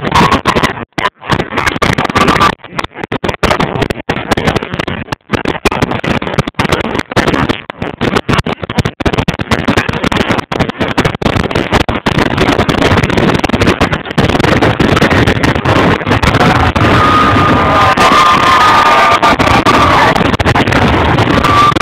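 Fireworks display: a fast run of heavy bursts and crackling that overload the recorder, turning into a denser, continuous barrage in the second half, with wavering high whistling tones near the end.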